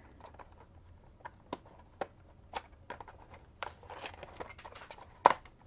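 Cardboard Panini Chronicles hanger box being handled and its flap pried open: scattered light taps and rustles of cardboard, with one sharp snap about five seconds in.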